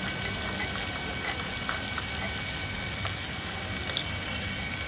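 A spoon stirring sugar into payasam in a clay pot: a few light clicks of the spoon against the pot over a steady hiss.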